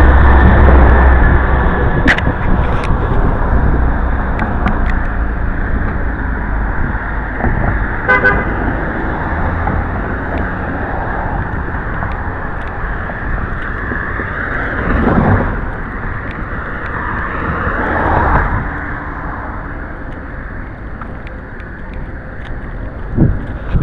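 City street traffic: cars and heavy vehicles going by, with a deep rumble loudest in the first couple of seconds and more vehicles swelling past later. A short car horn toot sounds about eight seconds in.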